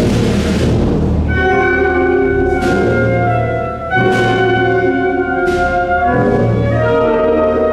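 Symphonic wind band playing a Spanish processional march (marcha procesional): held brass and woodwind chords over a low drum and bass line, with four cymbal crashes.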